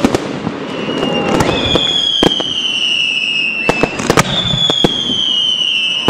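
Aerial fireworks going off: sharp bangs and crackle with whistling shells. Two long whistles of about two seconds each fall slowly in pitch, the second starting right after a cluster of bangs.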